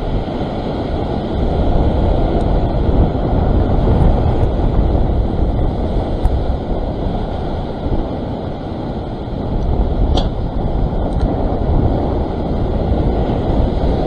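Strong wind buffeting the microphone over surf breaking and washing across the rock ledge, swelling and easing in waves.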